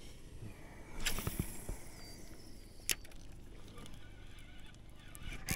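Spinning-rod cast on a pond: the lure splashes down about a second in, the reel's bail clicks shut near three seconds, and a sudden louder splash comes near the end as a fish strikes the lure.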